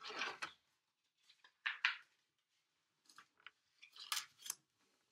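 Faint rustling and clicking in a few short, irregular bursts: a plastic 4K Blu-ray case being handled and opened.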